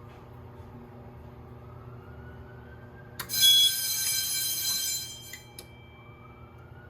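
Fire alarm horn sounding a loud buzzing blast that starts suddenly about three seconds in and cuts off about two seconds later, over a low steady hum.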